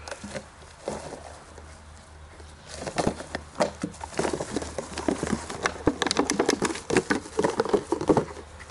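Puppy playing rough with a toy on grass. About three seconds in a busy run of quick clicks, rustles and short growly grunts starts as it bites and tugs at the toy, and it keeps on until near the end.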